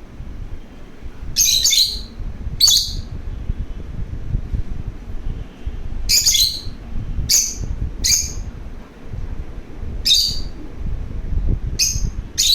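Pet lovebird chirping: about eight short, high-pitched calls, some in quick pairs, with pauses of a few seconds between them.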